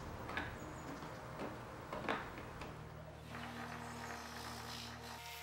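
A small hand scraping tool dragging chemically softened paint out of the grooves of an antique wooden dresser, with a few separate scraping strokes. After about three seconds the strokes give way to a steady low hum.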